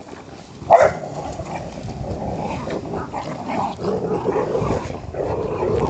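Two small dogs growling continuously as they tug and wrestle over a toy in play, with one sharp, loud cry from one of them about a second in.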